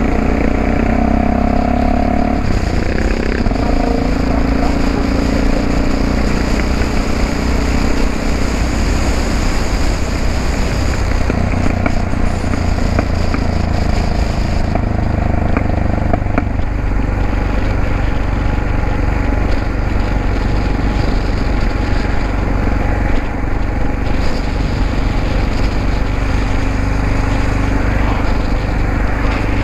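Yamaha XT660X's single-cylinder four-stroke engine and exhaust heard on the move while riding, a steady engine note whose pitch shifts a few times, near the start and again about halfway through.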